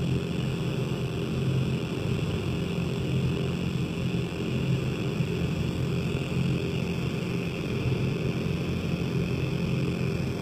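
Casper Electronics Nova Drone, a six-oscillator analog synth, putting out a steady, dense low drone of several held tones with a hiss above it.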